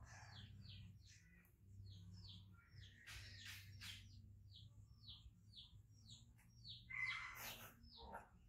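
Faint, repeated bird call: short, falling high chirps about two a second. Twice, a louder scratchy sound cuts across it.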